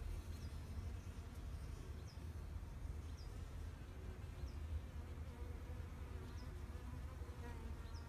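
Bees buzzing, a steady hum whose pitch wavers as they move about, over a low rumble. Short high falling chirps come every second or so.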